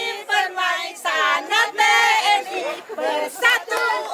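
Voices singing a song, the melody held in short sung phrases.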